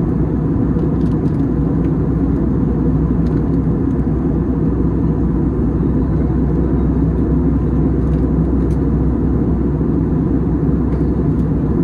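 Airbus A320 cabin noise at cruise, heard inside the cabin from a window seat: a steady, even low rumble of engines and airflow.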